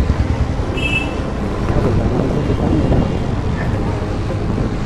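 A two-wheeler riding slowly through a busy street: steady engine and road rumble. A brief faint high tone comes about a second in.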